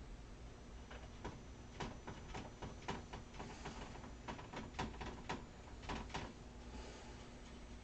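Faint, irregular clicks and taps of a paintbrush working gold paint in the pans of a metal tin of metallic watercolours, about a dozen between one and six seconds in.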